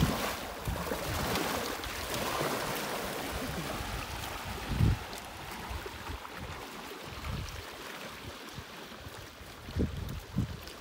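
Small waves washing up the shore and splashing around an inflatable boat, strongest in the first few seconds and then easing off. A few short low thumps come about halfway through and again near the end.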